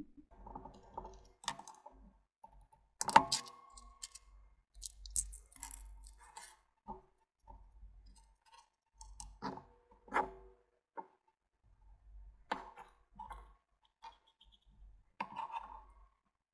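Handling noises of a Baofeng handheld radio as its antenna is unscrewed and a coax lead and attenuator are connected: scattered small clicks, taps and knocks, the sharpest about three seconds in.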